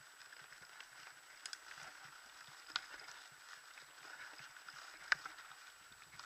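Mountain bike ridden over a grass and dirt trail: a faint steady rustle of the tyres with small rattles of the bike, and two sharp clicks, one about three seconds in and one about five seconds in.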